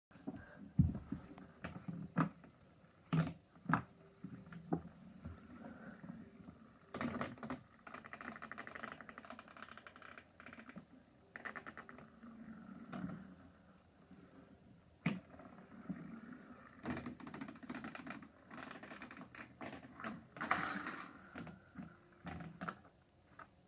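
Lego plastic parts clicking and rattling as a fidget spinner spins against the base of a pyramid stacked from Lego Technic beams, with several runs of fast, even rattling. Near the end the beams clatter down onto the wooden floor as the pyramid collapses.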